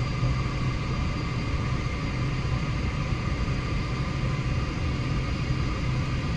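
Steady airliner cabin drone: an even rushing noise with a low hum under it.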